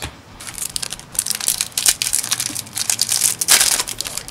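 Foil wrapper of a Yu-Gi-Oh! booster pack crinkling and crackling as hands work at it to open it. It grows louder near the end.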